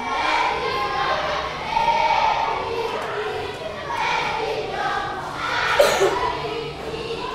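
Classroom chatter: many children's voices talking at once in a large room, with one sharp knock a little before the end.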